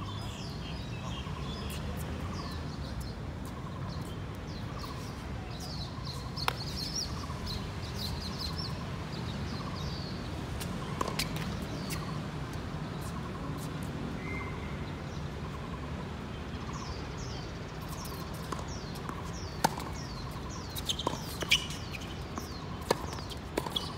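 Birds chirping, short falling chirps again and again, over a steady low background noise. Scattered sharp clicks or knocks come in, more of them in the last few seconds.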